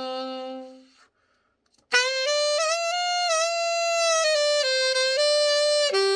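Selmer Reference 54 alto saxophone played solo after a full overhaul: a held note fades out, and after a pause of about a second a new phrase of long sustained notes begins, stepping up and down in pitch.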